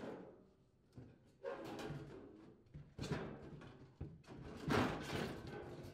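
Rear panel of a refrigerator's freezer compartment being worked off its mounting tabs and pulled out: a few uneven stretches of scraping and rubbing, with some sharp knocks and clicks.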